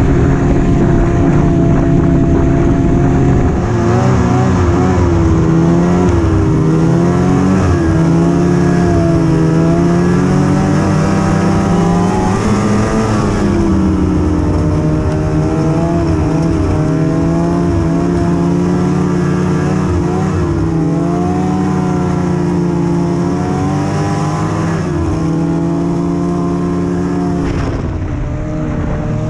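Ski-Doo snowmobile's two-stroke engine running under way, its pitch rising and falling with the throttle, highest around the middle.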